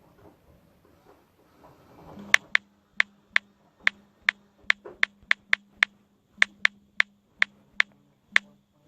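Samsung Galaxy S7 vibrating, starting about two seconds in: a low buzz in long pulses with short breaks, with a run of sharp, loud clicks at about two to three a second over it.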